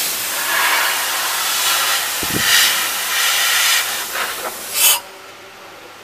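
Compressed air hissing loudly and steadily, swelling briefly just before it cuts off suddenly about five seconds in. A single dull knock sounds about two seconds in.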